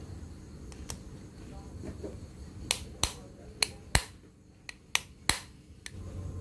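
A hammer taps a steel socket held over a small electric motor's shaft in its aluminium end housing. About eight sharp metallic knocks come at an uneven pace from about two and a half seconds in.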